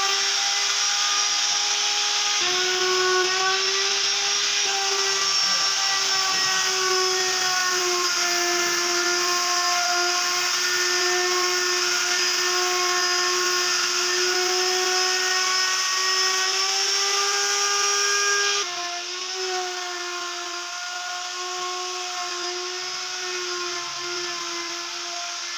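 Table-mounted wood router running at high speed: a steady, high motor whine. The level drops abruptly a little about three-quarters of the way through, and the whine carries on.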